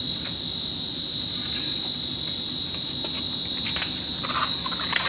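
A steady, unbroken high-pitched whine, with a few faint rustles and clicks near the end.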